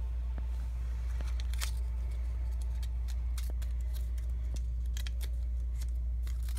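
Small paper leaflet being unrolled and fiddled with by hand, giving scattered light crinkles and clicks over a steady low hum.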